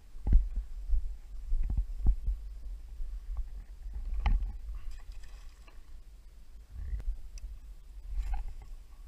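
Low rumble of movement and handling on a body-worn camera's microphone, with a few dull knocks, the loudest about four seconds in.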